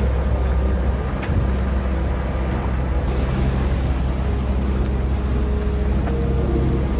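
A sailing yacht's engine running at maximum speed, a steady deep hum under a light hiss of wind and water. There is one brief knock about a second in.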